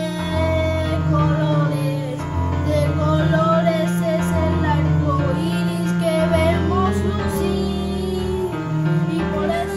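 A child singing a song with instrumental accompaniment and a steady bass line.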